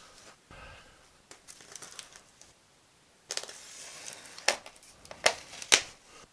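Polystyrene foam packing blocks being pried open and handled inside a cardboard box: faint rubbing at first, then louder crinkling and scraping from about halfway, with three sharp squeaky strokes near the end.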